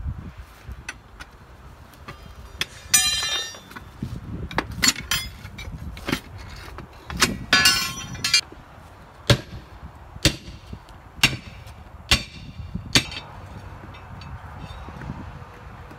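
Steel tire irons clanking and prying against multi-piece forklift wheel rims and their steel lock rings: a run of sharp metal knocks, with two longer ringing clangs, one about three seconds in and one near the middle. Later come five single sharp knocks about a second apart.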